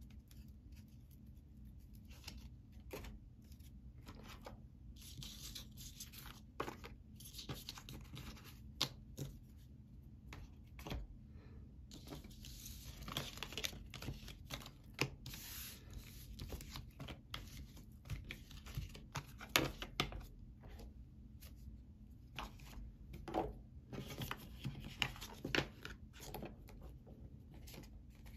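Tarot cards being handled and shuffled: a quiet, irregular dry rustling and flicking with scattered clicks and taps.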